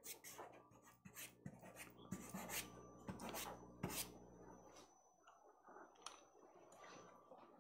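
Faint scratching and rubbing of a soft pastel stick and fingers on textured paper, in a run of short strokes that are busiest in the first half.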